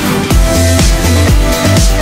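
Electronic dance music with a steady heavy bass beat, about two beats a second.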